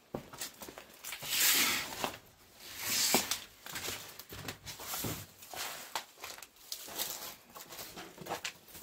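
Irregular footsteps and scuffs with rustling, and two louder rustles about one and three seconds in.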